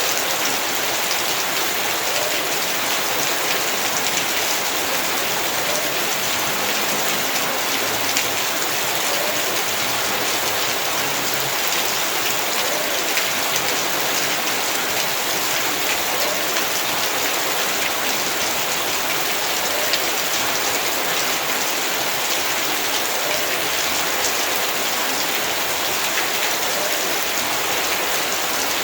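Heavy rain falling steadily, a dense even hiss with scattered individual drops ticking on surfaces.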